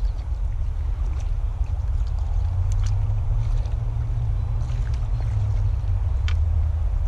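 Wind buffeting the camera's microphone, a steady low rumble, with a few short sharp clicks about three seconds in and again near the end.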